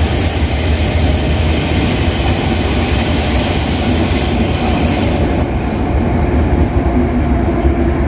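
Berlin S-Bahn train running along an elevated viaduct: a steady low rumble of wheels on track with thin, high wheel squeal that dies away over the second half.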